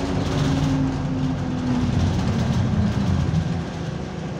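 Interior sound of an Alexander Dennis Enviro200 bus under way: the diesel engine and Allison automatic gearbox running, with a drawn-out whine that slowly falls in pitch over the road and body noise. The gearbox is in limp mode with no kickdown.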